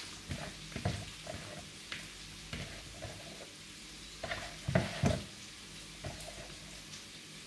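Washed dried small fish being dropped and handled among cut eggplant pieces in a nonstick pan: scattered soft taps and rustles, with a couple of louder knocks about five seconds in.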